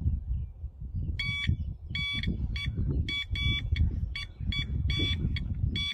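Carp fishing bite alarm sounding a run of quick, uneven electronic beeps, starting about a second in, as if a fish were taking line; here it is a false alarm.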